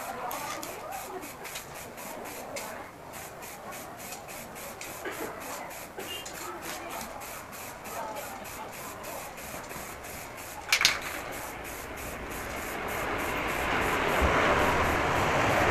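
Aerosol spray-paint can hissing as paint is sprayed onto a scooter's body panel, starting about three-quarters of the way in and growing louder toward the end. Before it, one sharp click.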